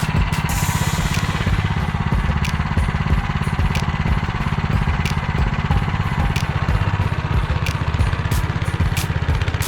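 Motor Sich walk-behind tractor engine running steadily under load as its rotary tiller churns the soil in first gear, with a faint sharp click about every second and a quarter.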